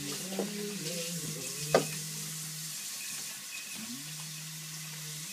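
Dog licking and smacking at sticky peanut butter, a wet, crackly lapping, with one sharp click a little under two seconds in, over a steady low hum.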